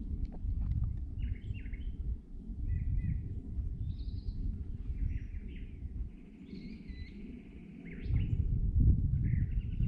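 Wind rumbling on the microphone, loudest near the end, with small songbirds chirping and trilling throughout.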